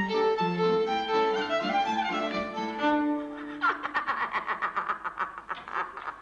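A violin melody plays for about three seconds, then breaks off. A woman's fast, pulsing laugh follows, at about eight pulses a second, and fades toward the end.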